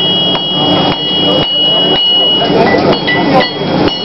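Blacksmith's hand hammer striking hot iron on an anvil: several irregularly spaced blows, with a high steady ringing tone lingering between them over a background murmur of voices.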